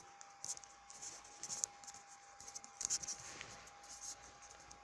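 Plastic rain poncho rustling and crinkling in scattered bursts close to the microphone, over a steady thin tone.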